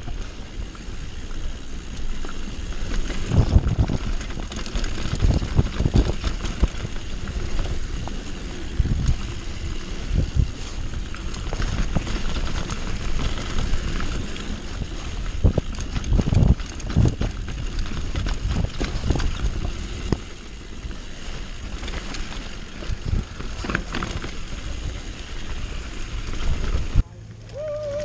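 Mountain bike descending a rough dirt trail: wind buffeting the bike-mounted camera's microphone over the rattle of the bike and tyres on dirt, with repeated knocks as it hits bumps. Near the end the noise drops abruptly to a much quieter scene.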